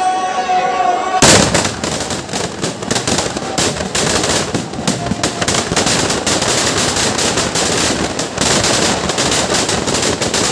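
Firecrackers packed inside a burning Dussehra Ravana effigy going off in a dense, rapid crackle of bangs. They start suddenly about a second in, with the loudest bang at the start.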